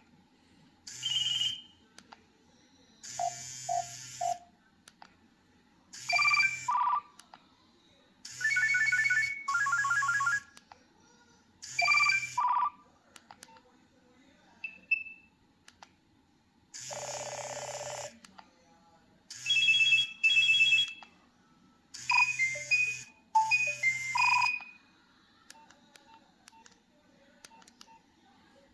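A Nokia 3120b mobile phone's speaker playing a series of its preloaded electronic tones, about a dozen short melodic jingles, each around a second long, with short pauses between them.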